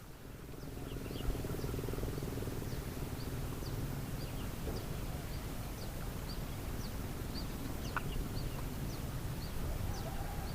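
Short high chirps from small animals, repeating about two to three times a second over a steady low hum.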